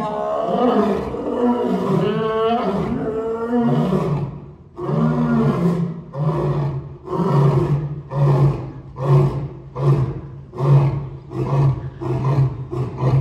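Male African lion roaring: one long, full-throated roar for the first four seconds or so, then a run of short grunts, about one a second at first and coming faster toward the end.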